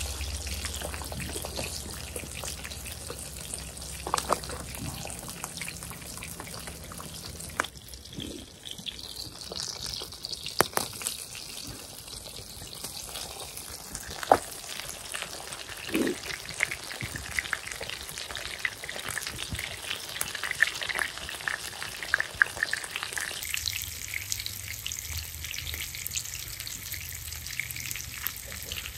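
Burgers frying in bacon grease: a steady sizzle with scattered sharp pops.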